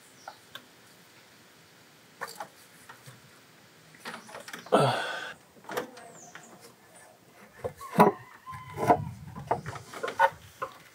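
Clicks and clunks of a socket ratchet and of a V6 engine's valve cover being worked loose and lifted from the cylinder head. There is a scraping rush about five seconds in, and a cluster of sharp knocks with a low rumble around eight to nine seconds.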